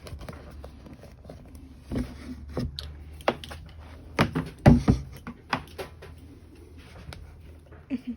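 Sharp clicks and knocks of hands working the armrest lid and its cover material as the cover is pulled tight over the plastic base. The loudest cluster comes a little past the middle, over a steady low hum.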